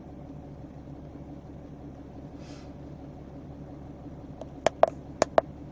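Four sharp clicks in quick succession near the end, keypad buttons being pressed on a handheld Autel MaxiCheck Pro scan tool, over a steady low hum inside the car.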